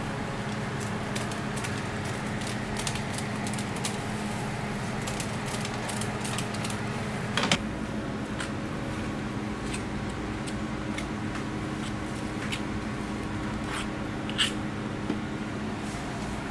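Steady hum of kitchen appliances, with scattered light clicks and taps from utensils and plastic containers being handled; a sharper click comes about seven and a half seconds in and another near the end.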